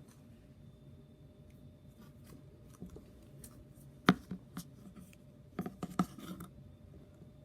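Slime being worked by hand, giving scattered small sticky clicks and crackles, with a sharp click about four seconds in and a run of clicks around six seconds.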